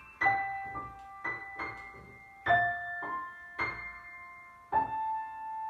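Piano music: single notes struck one after another at a slow pace, each ringing and dying away, the last one near the end held and fading.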